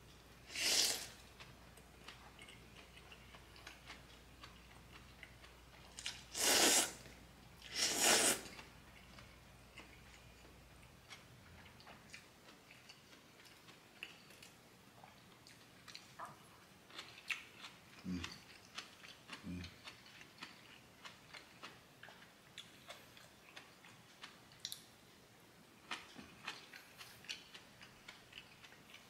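Eating ramyun noodles: three loud slurps in the first nine seconds or so, then quieter chewing with many small clicks and mouth sounds.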